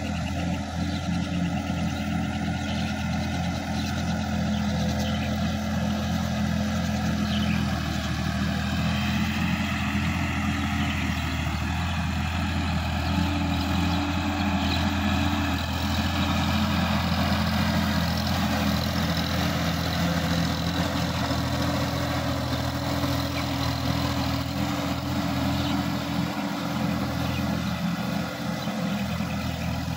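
Sonalika DI-50 RX tractor's diesel engine running steadily under load as it pulls a tillage implement through a wet, muddy paddy field. Its pitch shifts slightly a few times.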